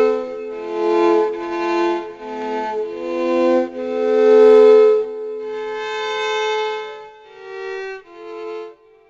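Slow violin music of long held notes that swell and fade, growing quieter and dying away near the end.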